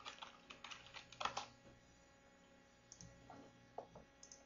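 Faint computer keyboard typing: a quick run of keystrokes in the first second and a half, then a few scattered key clicks.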